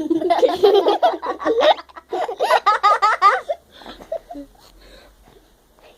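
Girls laughing hard in two long peals of rapid, high-pitched laughter, dying away about halfway through.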